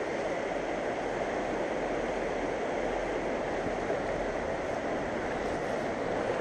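Steady rushing of a fast mountain river, an even roar of water with no break.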